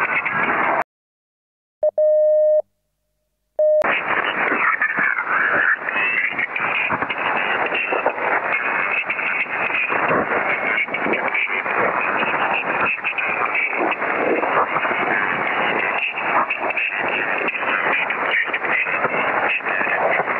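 Harsh static like a badly tuned radio, cut off above the upper mid-range. Near the start it drops out for about three seconds; during the gap a steady electronic beep sounds for under a second, and a short blip follows just as the static returns.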